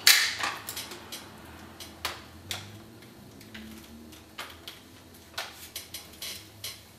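Bassoon bell joint being twisted off and handled: a sharp click at the very start, then scattered soft clicks and taps of the wooden joints and metal keywork.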